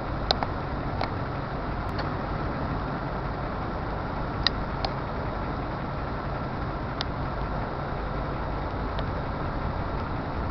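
Low, steady rumble of diesel locomotives on a freight train moving at a crawl, with a few faint clicks.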